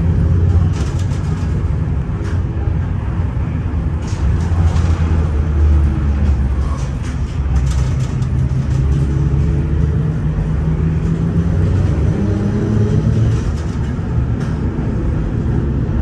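LVS-86K tram running along the track, heard from inside: a steady low rumble of the wheels and running gear, with a faint whine from the traction drive that slides up and down in pitch and occasional clicks.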